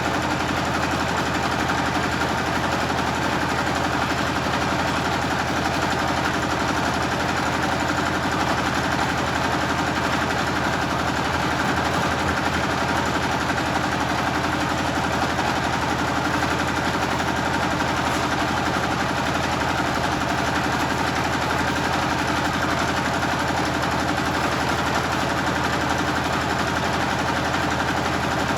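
Generator engine running steadily at constant speed.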